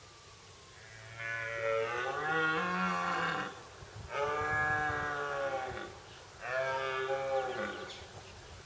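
Red deer stag giving its rutting roar: three long, deep calls in quick succession, each dropping in pitch as it ends.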